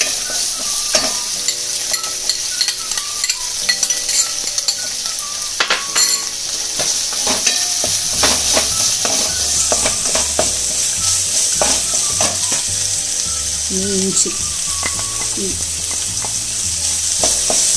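Sliced onions sizzling in hot vanaspati (Dalda) in a steel kadai, stirred with a flat spatula that scrapes and clicks against the pan.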